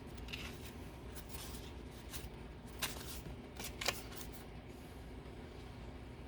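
Paper and lace being handled on a craft table: short rustles and light clicks, with two sharper clicks about three and four seconds in.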